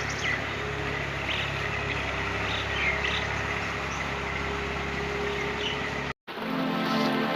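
An engine running steadily at idle, with birds chirping and a steady insect tone over it. About six seconds in the sound cuts out briefly and background music begins.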